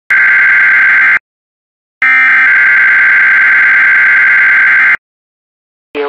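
Emergency Alert System digital header data bursts: a raspy, buzzing electronic screech about a second long, then after a one-second silence a second burst of about three seconds, each cutting off abruptly.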